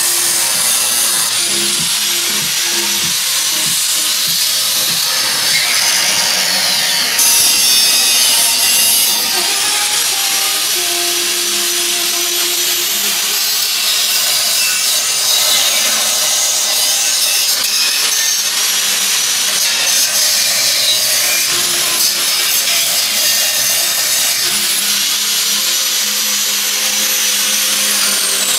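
Angle grinder with a sanding disc running against pallet-wood boards: a steady, loud abrasive whine and hiss that rises and falls in pitch as the disc is pressed and lifted. Background music plays underneath.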